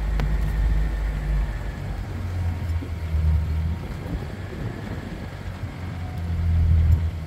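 Vehicle engine running: a low, steady rumble that swells and eases a few times.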